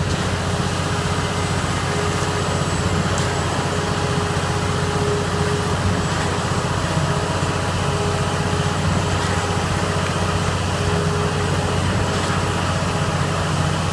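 Heavy truck engine running steadily: a constant low drone, with a faint higher whine that comes and goes.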